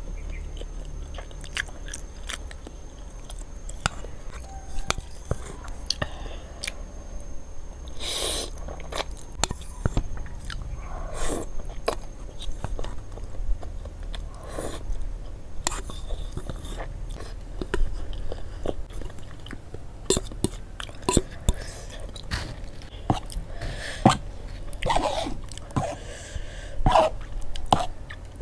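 Close-up mouth sounds of a person eating creamy instant noodles and enoki mushrooms: steady chewing with many short wet clicks and smacks, and a few longer slurps of noodles.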